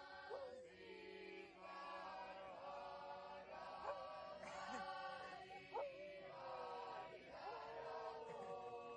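Boys' choir singing a slow chant of long held notes in several voices, with a husky howling along; its howls slide up and then down over the choir's steady chords.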